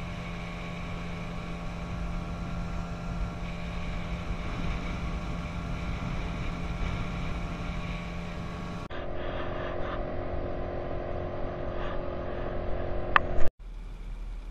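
A boat's outboard motor runs steadily with the boat under way, a constant engine drone over the rush of water. About nine seconds in, the sound changes abruptly to a different, duller steady engine tone. Near the end a sharp click comes, and the sound drops out for a moment.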